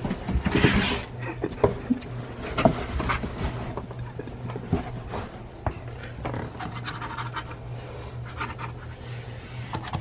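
Cardboard box being handled and shifted on a wooden floor, giving irregular scratching and scraping noises, with a dog panting.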